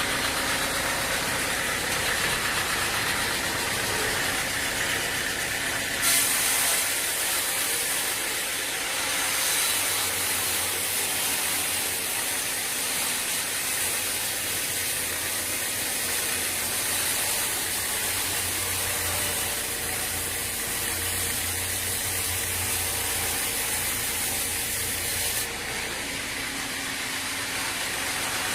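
Sawmill machinery running steadily. About six seconds in, a loud high hiss starts suddenly, holds steady, and cuts off suddenly near the end.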